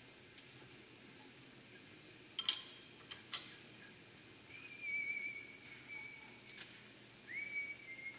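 Steel clamping hardware clinking on a milling machine table, the loudest a ringing clank about two and a half seconds in. It is followed by a person whistling two long, high notes, the second starting near the end.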